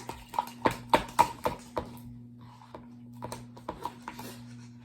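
Light clicks and knocks from cups and other objects being handled, quick and irregular for about two seconds, then fewer and fainter, over a steady low hum.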